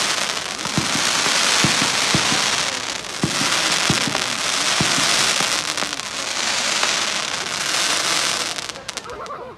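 Aerial fireworks crackling overhead: dense crackling from glittering stars comes in three long waves of a few seconds each, with scattered dull bangs beneath. It dies away near the end.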